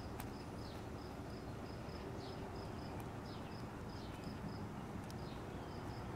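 A high, thin chirp repeating steadily about three times a second, typical of an insect such as a cricket, with a few faint falling high notes among them.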